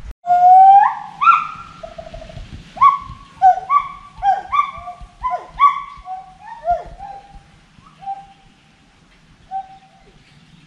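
Gibbon calling: a long rising opening whoop, then a run of about a dozen short whoops that swoop sharply up and down in pitch. The whoops come further apart and grow fainter toward the end.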